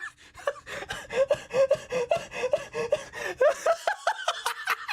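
A person laughing in a quick, steady run of short "ha" sounds, growing louder over the second half.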